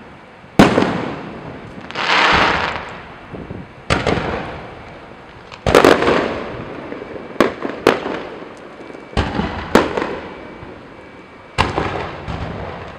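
Aerial fireworks shells bursting overhead: a string of about eight sharp bangs, each dying away in a long rolling echo, the loudest about half a second in.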